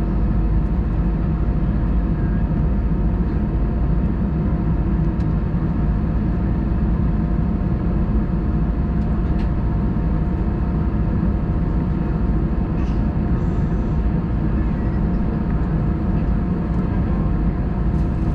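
Steady cabin drone inside an Airbus A319 during pushback: a deep, even rumble with a thin steady whine over it.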